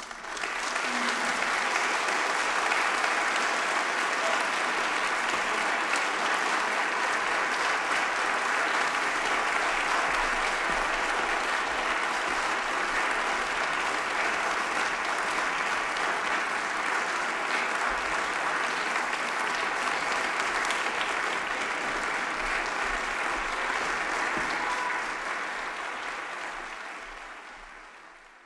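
Audience applauding, a steady dense clapping that begins the moment the solo violin stops and fades away over the last few seconds.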